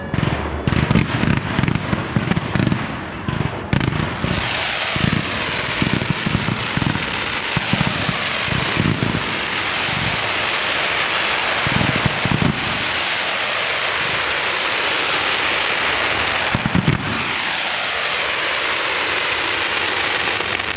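Large fireworks display: deep shell bursts thud in quick succession for the first few seconds, then a long dense crackling hiss fills the air, with a few more bursts scattered through it.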